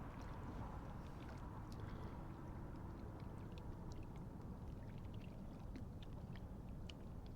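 Faint lake-shore water lapping, with a low steady rumble and small, irregular ticks and drips.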